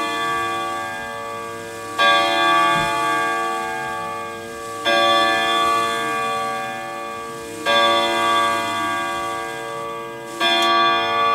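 Grandfather clock striking the hour: the same gong note struck four times, slowly and evenly about three seconds apart, each stroke ringing on until the next. The striking mechanism has just been oiled and is working better.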